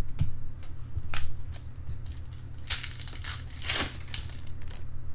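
Trading-card pack being handled: a few short crinkling, rustling swishes of wrapper and cards, the loudest just before four seconds in, over a steady low hum.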